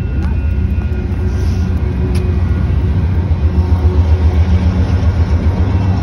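Steady low traffic rumble with a faint engine hum, growing slightly louder in the second half.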